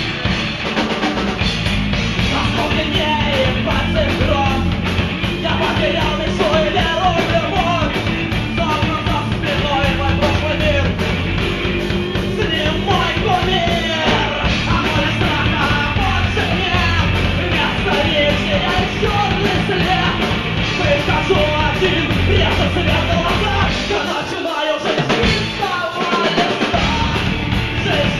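A rock band playing live: electric guitar, drum kit and bass under a male singer's vocals. The low end drops away briefly near the end before the full band comes back in.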